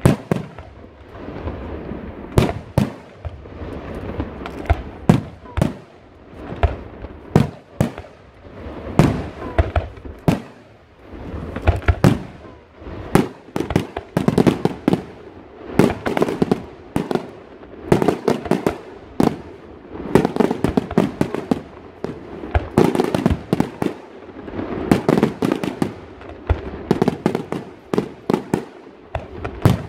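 Aerial fireworks shells bursting overhead in a rapid, continuous series of sharp bangs, coming thickest in clustered volleys through the middle and later part.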